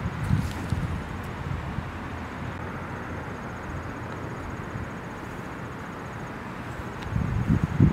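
Outdoor ambience: a steady rushing noise with low buffeting gusts of wind on the microphone near the start and again near the end.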